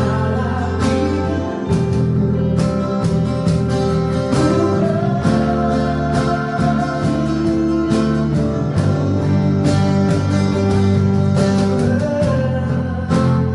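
Worship music led by guitar, with regular strums or beats.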